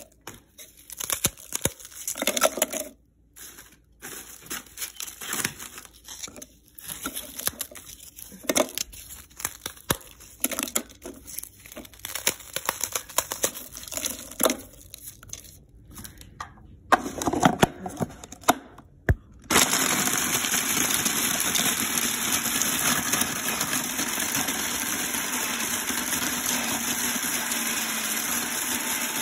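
Dry, hard bread being broken up by hand and dropped into a plastic food-processor bowl, giving crumbly crackling and tearing with scattered clicks. About two-thirds of the way through, the electric food processor starts suddenly and runs steadily, grinding the bread into crumbs.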